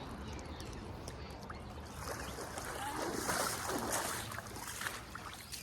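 River water sloshing and splashing around a person wading through it, growing louder and brighter about two seconds in.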